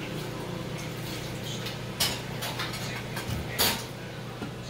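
Two brief clinks about a second and a half apart over a steady low hum.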